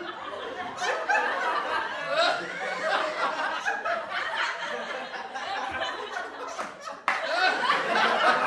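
Several people laughing and chuckling together, voices overlapping. About seven seconds in the sound cuts abruptly to another, louder burst of laughter.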